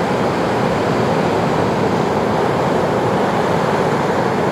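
Ocean surf and wind, a steady even wash of noise.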